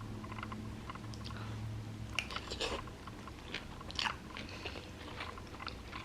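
A person chewing a mouthful of jjajangmyeon noodles in black bean sauce close to the microphone, with wet mouth clicks and smacks that come thicker from about two seconds in. A low steady hum stops about two seconds in.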